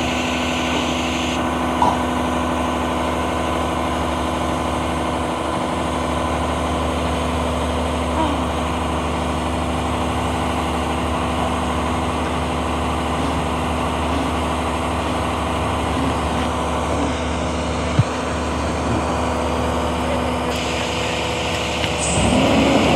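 Front-loader garbage truck's engine idling steadily, with a couple of brief knocks.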